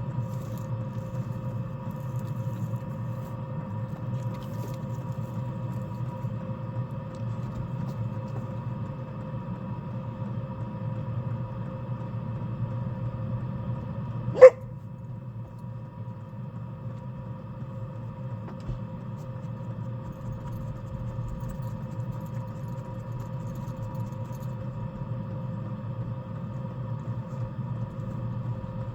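Houswin self-generating diesel heater running with a steady hum. About halfway through comes a single short, loud, sharp sound, and the hum goes on slightly quieter after it.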